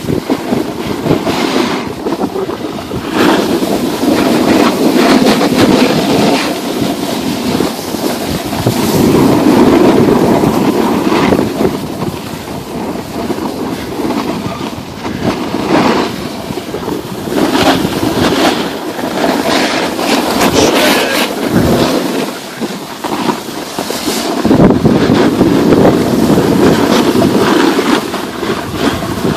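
Wind rushing over the microphone of a camera carried by a skier heading downhill, loud and steady, with the repeated hiss and scrape of skis turning on packed snow.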